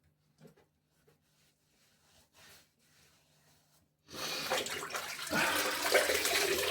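Water splashing at a sink as hands wet the face, starting suddenly about four seconds in after near silence with a few faint clicks.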